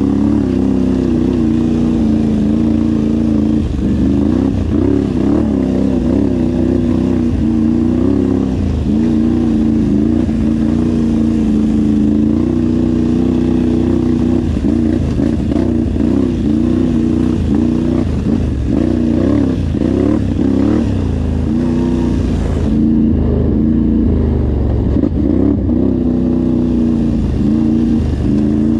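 An off-road vehicle engine heard on board while riding, its pitch rising and falling constantly as the throttle opens and closes.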